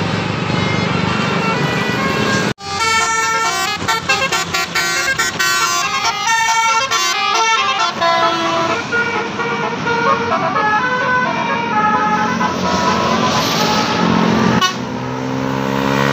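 Indonesian bus 'telolet' multi-tone air horn playing: a held chord, then a quick melody of changing notes for most of the stretch, then rising notes near the end. The sound breaks off abruptly about two and a half seconds in and again near the end.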